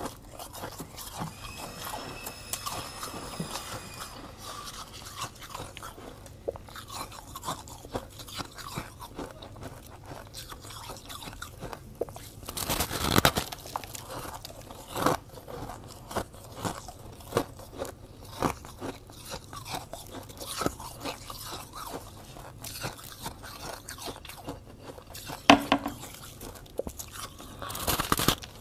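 Crunching bites into a clump of soft, snowy blue freezer frost, then chewing it: many short crackles throughout, with louder crunches about halfway through and again near the end.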